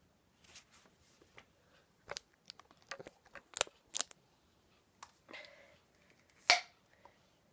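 Scattered clicks and taps of a small baby food jar and its lid being handled and twisted open, with one louder sharp noise about six and a half seconds in.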